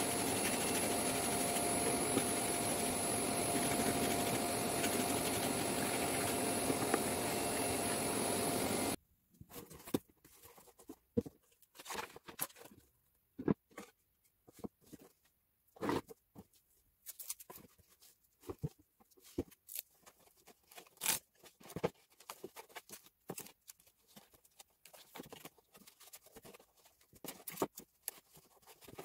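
A vacuum dust extractor runs steadily with a whine, pulling air down through a holed downdraft sanding table, and cuts off abruptly about a third of the way in. After that come scattered knocks, rustles and scrapes of a cardboard box and wooden boards being handled.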